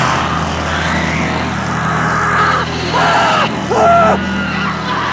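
Chainsaw engine running with a steady drone. A woman gives two short screams about three and four seconds in.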